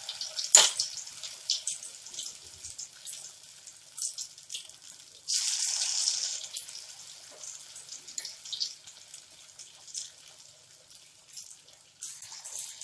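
Bread-paneer pakora balls deep-frying in hot oil in a steel kadai: a sizzle full of small crackling pops. It surges into a louder hiss about five seconds in, and again near the end, as more batter-coated balls go into the oil. A single sharp knock sounds about half a second in.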